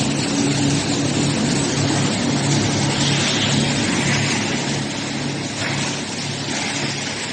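Industrial wood-crushing machinery (hammer mill line) running steadily: a low motor hum that pulses about twice a second under a constant rushing noise, easing slightly about five seconds in.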